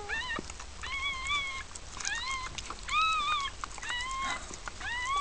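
Newborn puppy crying in high, mewing squeals, about six short cries that rise and fall in pitch, while its mother licks it clean just after birth.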